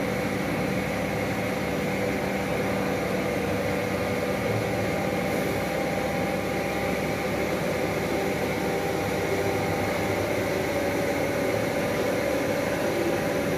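CNC router's spindle running steadily while it carves wood: an even hiss with a steady tone over it.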